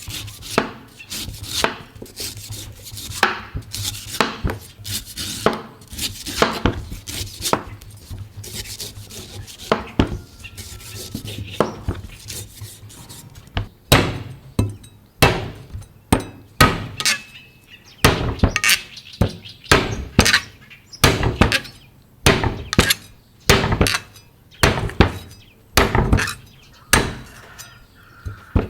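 Knife chopping into a coconut again and again, each blow a sharp hit. The chops are irregular at first and settle into a steady rhythm of about one a second about halfway through.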